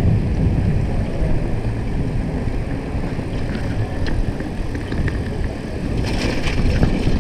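Wind buffeting the microphone on a moving bicycle, over the swish of its tyres on a wet road. A brighter hiss joins about six seconds in.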